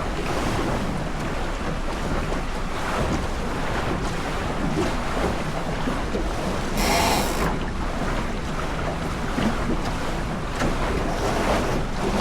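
Wind buffeting the microphone and water rushing past the hull of a small sailboat under way, with a brief louder hiss about seven seconds in.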